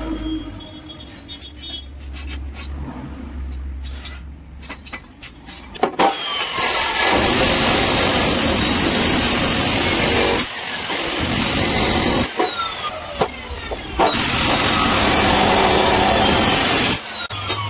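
Abrasive cut-off (chop) saw cutting steel angle: a loud grinding rush with the motor's high whine sagging under load and climbing again, pausing briefly a few times. It starts about six seconds in, after a few light knocks.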